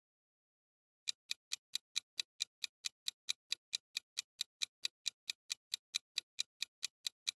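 Countdown-timer sound effect of a ticking clock: evenly spaced sharp ticks, about four and a half a second, starting about a second in.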